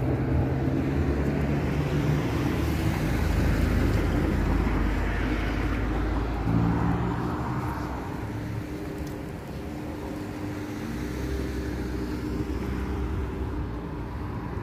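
Road traffic: a steady low car engine hum, with the tyre and engine noise of a passing vehicle swelling and fading over a few seconds.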